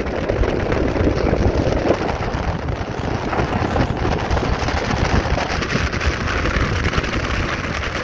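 Small boat running underway: a steady motor drone with wind rushing over the microphone.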